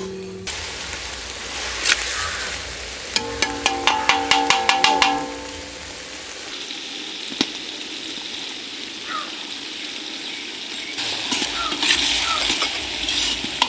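Vegetables with chilli and soy sauce sizzling in a hot pan as they are stir-fried. A metal spatula scrapes and clanks rapidly against the pan about three seconds in, and the sizzle grows louder near the end.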